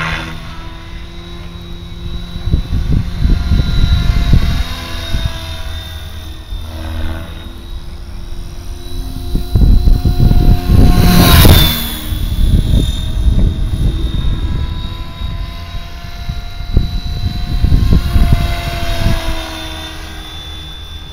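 Electric RC helicopter with a Scorpion 4025-890 brushless motor on a 6S battery flying overhead: a steady high whine from motor and rotor over an uneven low rumble. It grows louder for about two seconds near the middle, and its whine drops in pitch as that loud stretch ends.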